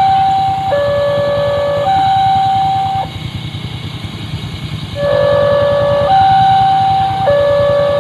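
Railway level-crossing warning alarm sounding: two electronic tones, a higher and a lower one, alternating about once a second. It breaks off for about two seconds around three seconds in, then starts again. A low, steady rumble runs underneath.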